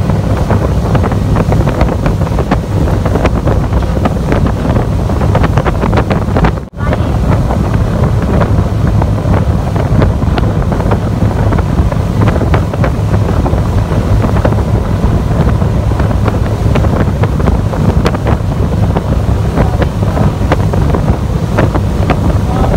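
Motorboat running under way, engine drone mixed with heavy wind buffeting the microphone and water rushing past the hull. The sound drops out for a moment about seven seconds in.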